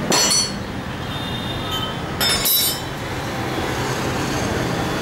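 Steady background noise with two short, high-pitched screeches, one at the start and one about two seconds later.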